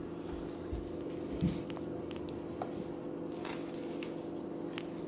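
A ceramic knife slicing raw chicken breast on a plastic cutting board, with a few faint, scattered taps of the blade on the board. Under it a microwave oven runs with a steady hum.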